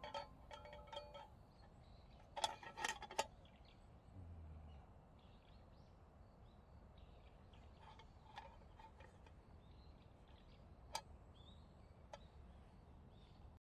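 Faint, sparse metallic clicks and clinks of a battle mess tin's wire bail handle against the pot as it is turned in the hands. A short cluster of louder taps comes about two and a half seconds in; otherwise near silence.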